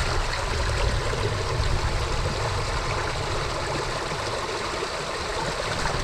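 Shallow stream of clear water running steadily over rock, close by.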